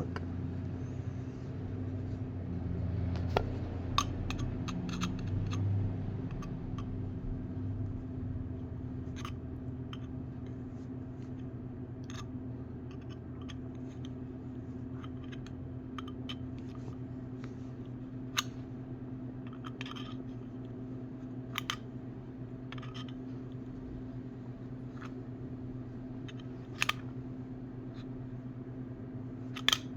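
Small metal parts of a 1991 Zippo windproof lighter being handled during disassembly: scattered light clicks and taps, a dozen or so at uneven intervals, the sharpest about four seconds in and near the end.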